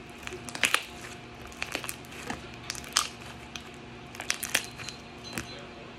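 Hand-kneaded slime being pressed and squeezed, giving off irregular sharp clicks and crackles, a few at a time, the loudest less than a second in and about three seconds in.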